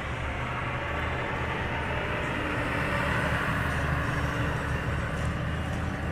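Deutz-Fahr TTV 1160 tractor's six-cylinder diesel engine running steadily under load while pulling a plough, a deep rumble that swells slightly about halfway through.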